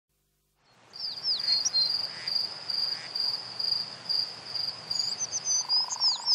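Countryside ambience fading in: crickets chirping in a steady, high, pulsing trill, with short downward-sweeping bird calls over it.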